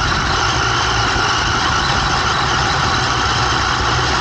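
Radio-controlled car driving over grass, its motor and drivetrain giving a steady whir that does not let up.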